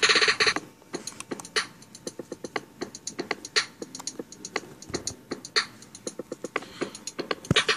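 Pencil drawing on paper close to a microphone lying on the sheet: a run of short, irregular scratchy ticks from the pencil strokes, with a loud rasping burst at the start and another near the end.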